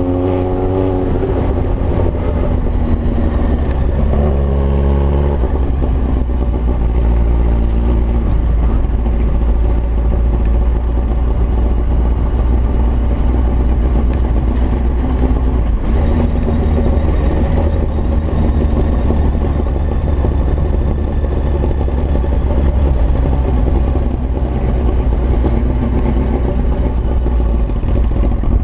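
Kawasaki ZX-9R's inline-four engine running loud with no exhaust fitted while being ridden. The pitch climbs and drops as it revs through gears near the start and again about four seconds in, then holds steadier.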